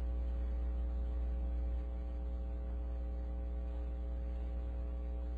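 Steady electrical mains hum: a low drone with a row of fainter, evenly spaced higher tones above it, dipping slightly in level about two seconds in.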